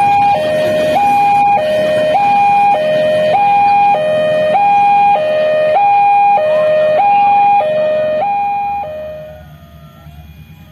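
Railway level-crossing warning alarm sounding a loud two-tone electronic signal, a lower and a higher tone alternating about every half second, warning that a train is passing. It stops about nine seconds in, leaving quieter outdoor background noise.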